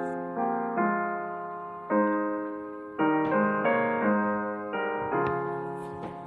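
Background music: slow piano chords, each struck and left to fade, about one a second.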